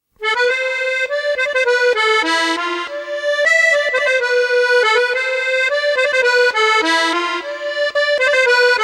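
Solo accordion playing a quick melody in the treble, with no bass underneath.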